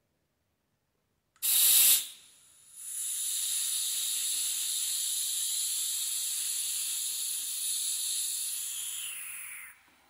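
Nitrox gas hissing out of a scuba cylinder valve as it is opened: a short loud blast about a second and a half in, then a steady hiss of gas flowing for an oxygen analyser reading, fading out just before the end.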